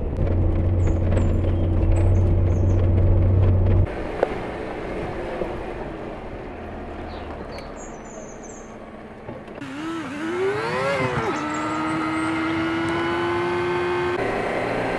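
Lada Niva's engine running as it drives along dirt and paved mountain roads, heard in several cut-together shots. About ten seconds in, the revs rise and fall twice, then settle into a steady, slowly climbing note as it pulls along.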